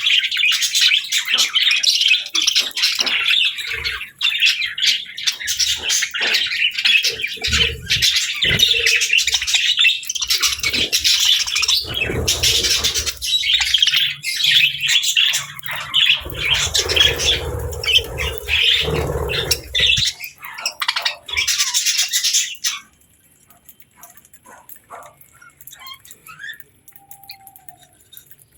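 Pet budgies and lovebirds chirping and squawking in a dense, continuous chatter that drops off suddenly with about six seconds left, leaving only a few scattered calls.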